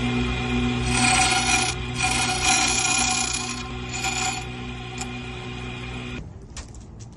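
Key-cutting machine motor running while its cutter grinds the shoulder of a key blank in three short passes, the last one brief; the motor is switched off about six seconds in, followed by a few light clicks from handling the key.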